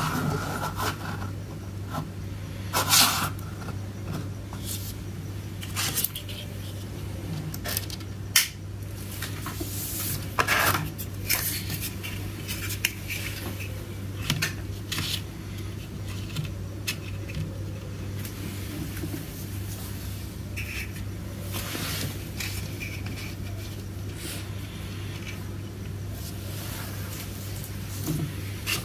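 Small hard-plastic dollhouse furniture pieces being handled and set down on a hard surface: scattered clicks, taps and light scrapes, with a few sharper knocks. A steady low hum runs underneath.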